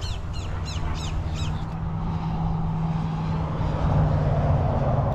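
Highway traffic runs steadily, with a low hum and a louder passing vehicle about four seconds in. Over it, in the first two seconds, a bird gives five quick falling calls.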